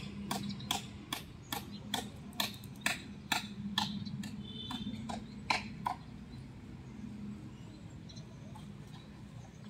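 Hammer striking wood in quick, even blows, about two or three a second, acting out the nailing of Jesus to the cross. The blows stop about six seconds in, leaving a low background murmur.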